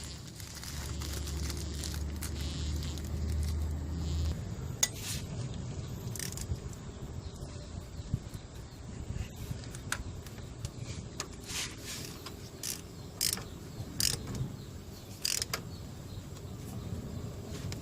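Hand tools clicking and clinking on metal: scattered sharp ticks and knocks, as from a ratchet and loose tools. A low steady hum runs under the first four seconds and stops suddenly.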